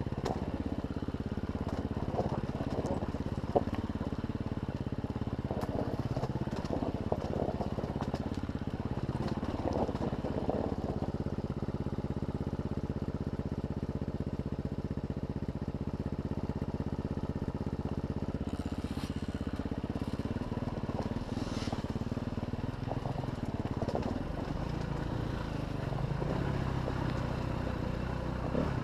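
Dirt bike engine running at low, fairly steady revs on a rough downhill trail, with scattered knocks and rattles from the bike over rocks.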